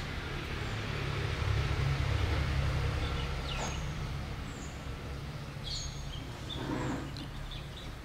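Outdoor ambience: a steady low rumble with a few short, high bird chirps, about three and a half seconds in and again near six seconds.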